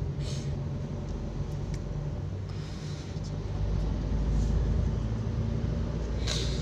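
Moving car heard from inside the cabin: a steady engine hum and road rumble, with the rumble swelling louder about halfway through and a few short hissing swishes.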